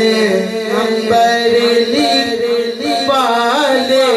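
Male voices singing an Urdu devotional song, the melody moving over a steady drone.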